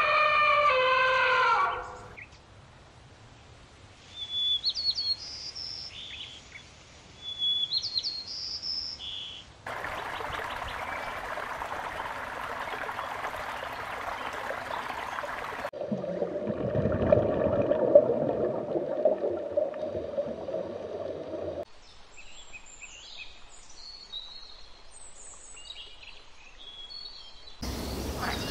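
A run of separate animal-sound clips. It opens with a pitched animal call that ends about two seconds in. Then come stretches of short bird chirps and calls, with two passages of steady outdoor noise between them.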